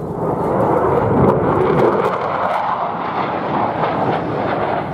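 Loud jet noise from an RAF Eurofighter Typhoon's twin Eurojet EJ200 turbofans as the jet flies past, with a falling sweep in the sound about two seconds in.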